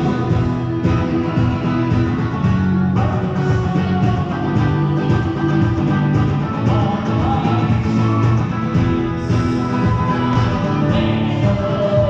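Live contra dance music: fiddle and acoustic guitar playing a dance tune with a steady beat.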